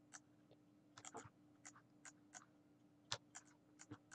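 Faint, irregular clicks of a computer mouse and keyboard, about a dozen in four seconds, over a faint steady hum.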